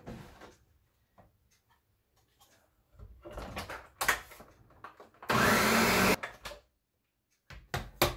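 Ninja blender's motor run in one short burst of about a second, blending frozen fruit, milk and yogurt into a thick smoothie. A few knocks and clicks before and after it.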